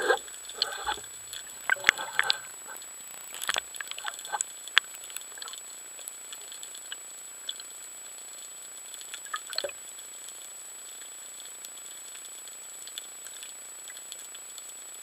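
Underwater sound heard through a camera housing: scattered crackling clicks throughout, with a cluster of louder bubbling, rustling bursts in the first two or three seconds as air bubbles rise past the camera. A thin steady high whine runs underneath.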